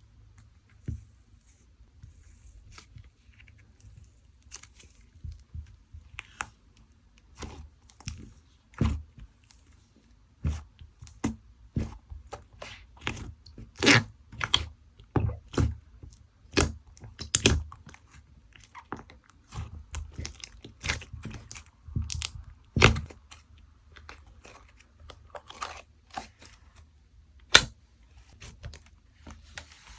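Slime worked by hand: irregular sticky pops, clicks and crackles as it is pressed, stretched and poked, with a few louder snaps, one of the sharpest about two and a half seconds before the end.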